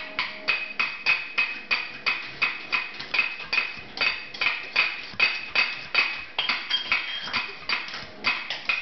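Utensils pounded on a table in a steady rhythm, about three hits a second, each hit with a short metallic ring.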